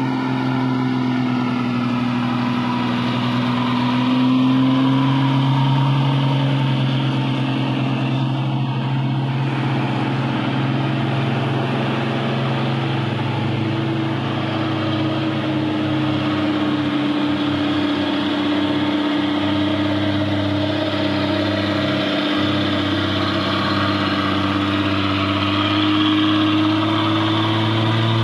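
Heavy loaded diesel trucks labouring up a steep grade, their engines running hard at steady low revs with a slow rise and fall in pitch as they pass.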